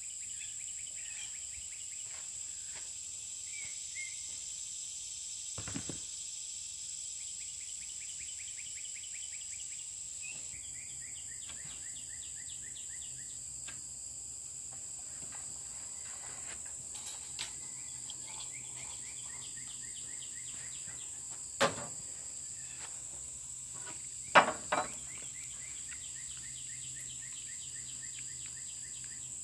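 Insects buzzing steadily on a high tone, with repeated fast pulsed chirping trills over it. A few sharp knocks break in, one about 22 seconds in and a louder double knock about two seconds later.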